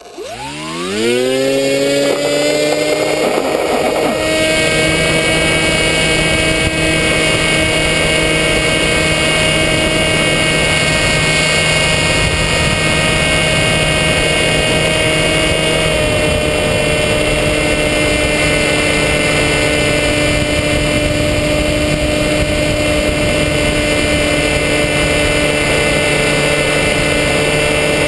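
Electric motor and propeller of a radio-controlled foam plane spinning up quickly from rest to full throttle for takeoff, the pitch rising sharply over about two seconds. It then holds a steady whine under wind rush through the climb, shifting slightly in pitch about sixteen seconds in.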